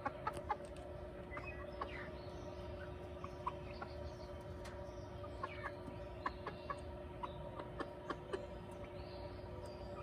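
A small flock of backyard hens clucking softly, many short calls scattered irregularly. A steady hum lies underneath.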